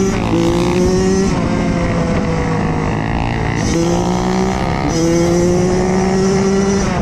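Koshine XN 105 pit bike's single-cylinder engine under way, its pitch climbing as it accelerates and dropping back at gear changes about a second in, near five seconds in and at the very end.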